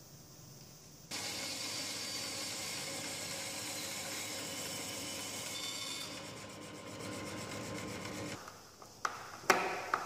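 Bandsaw running and cutting a small piece of wood, starting abruptly about a second in and stopping shortly before the end. A few sharp knocks follow near the end.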